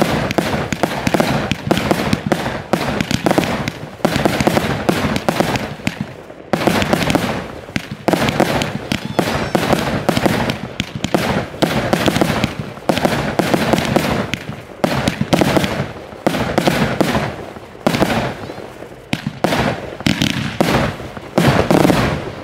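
Aerial fireworks bursting overhead in a rapid, near-continuous barrage of bangs, with brief lulls.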